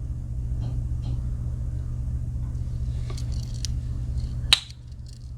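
Small metal clicks of Swiss Army knife tools being handled, ending in one sharp click about four and a half seconds in, against a steady low rumble that drops away right after that click.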